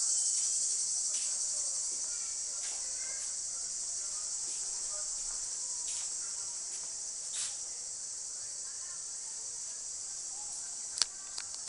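A steady, high-pitched chorus of insects, with faint short chirps over it. A sharp click sounds near the end, followed by a couple of smaller ones.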